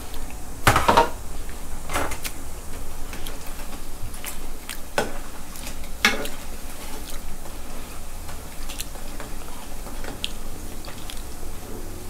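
Batter-coated meatball skewers deep-frying in hot oil, a steady sizzle, broken by several sharp clatters of a metal slotted skimmer against the pan. The loudest clatter comes about a second in.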